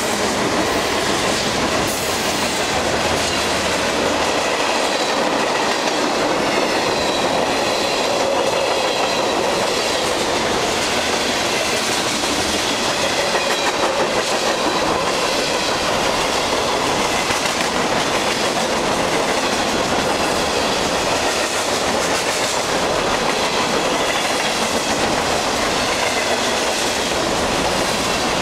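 Freight cars of a long train rolling past close by: boxcars, tank cars and covered hoppers. The wheels give a steady rumble and clickety-clack over the rails.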